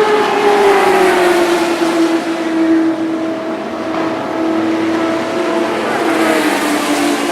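Vintage IndyCar race engine running hard at high revs; its pitch drops over the first two seconds, then holds steady.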